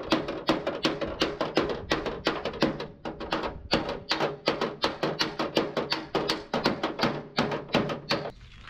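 Hammer blows on the sheet-steel cab of a Mercedes-Benz truck, struck quickly at about three to four a second, beating out accident damage by the door; the blows stop near the end.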